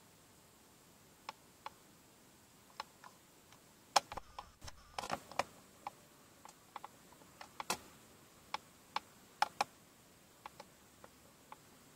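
Irregular sharp clicks and ticks, a dozen or so spread unevenly, with a quick flurry of crackling about four to five and a half seconds in.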